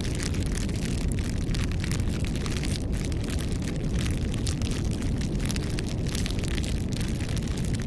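Campfire burning, with dense, irregular crackling and popping of the wood over a steady low rumble.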